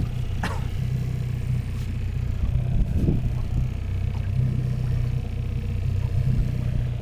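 Boat motor running steadily at low revs, a constant low drone.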